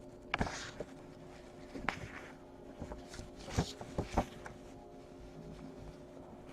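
Trading cards being handled and sorted: soft slides and light taps of card stock, a few sharp clicks spread out with the two loudest near the middle, over a faint steady hum.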